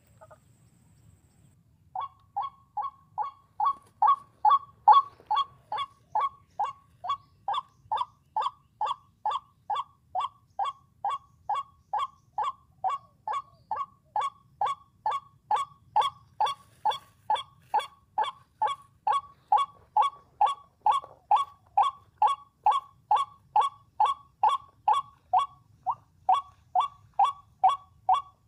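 White-breasted waterhen 'kwak' call played on a loop from a speaker as a lure: short harsh notes repeated evenly about twice a second, starting about two seconds in, with one brief break near the end.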